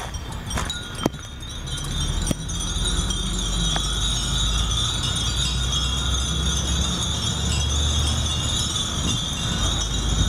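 Many furin (Japanese wind chimes) tinkling together in a continuous high shimmer, with a few single clear strikes in the first few seconds, over a steady low rumble.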